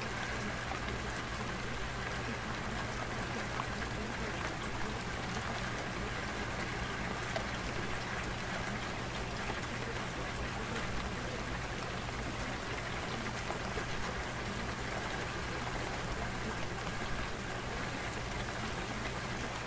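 Steady, even rain-like hiss with a faint low hum underneath, unchanging throughout. It is the kind of masking track that subliminal affirmation audio is hidden under.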